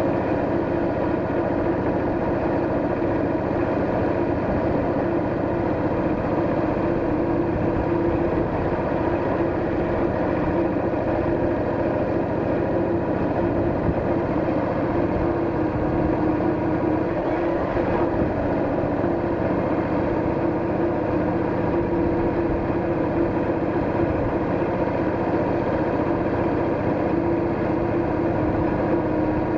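Cruiser motorcycle engine running steadily while the bike is ridden, an even note that holds its pitch throughout.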